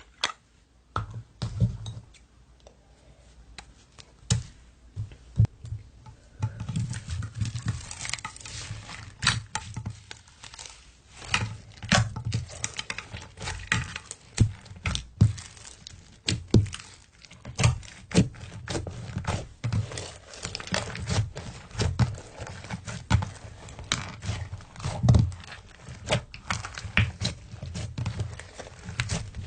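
Slime being played with: many irregular sharp pops and clicks over soft low thuds, sparse at first and coming thick and fast from about six seconds in.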